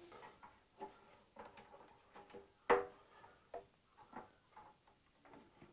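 Scattered light clicks and knocks of parts and tools being handled under a motorcycle's lifted fuel tank, the loudest a sharp knock with a brief ring a little under three seconds in.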